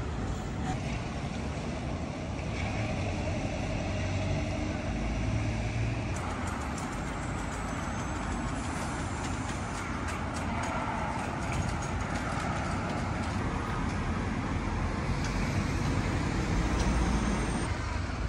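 Road traffic: cars and a city bus passing, their engines and tyres making a steady low rumble that swells a little in places.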